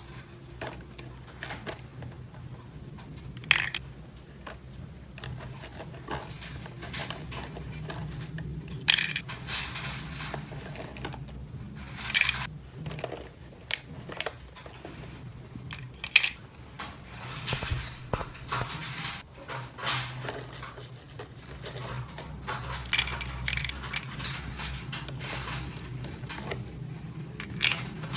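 Small plastic toy pieces clicking and clattering as they are handled and set down, with a few louder knocks among the lighter clicks, over a low steady hum.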